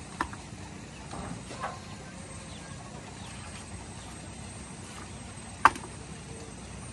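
Pieces of split firewood knocking together as they are pulled from a woodpile and gathered into an armload: a sharp wooden knock just after the start, a softer one about a second and a half in, and the loudest clack near the end.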